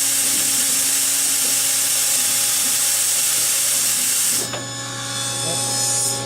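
Gannomat 470 Index 130 Trend CNC boring, gluing and dowelling machine running a cycle: a loud steady rushing noise over a steady machine hum. The noise cuts off about four and a half seconds in, leaving the hum.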